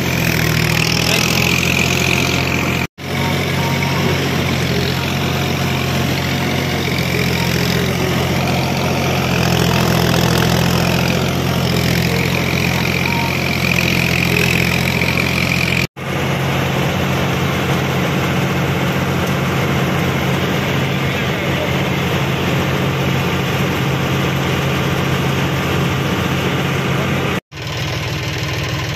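The diesel engine of a 2006-model combine harvester running steadily at a constant speed, heard from the driver's seat. It is broken by three brief dropouts.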